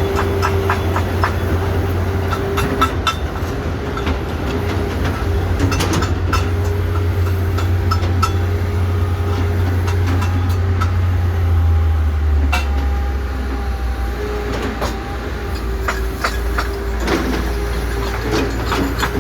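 Steady low mechanical drone, like heavy machinery or an idling engine, that drops to a lower pitch about twelve seconds in, with scattered sharp clicks and knocks over it.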